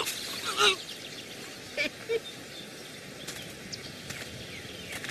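A few short, sharp cries over a steady outdoor background hiss: the loudest comes about half a second in, and two shorter ones follow close together about two seconds in.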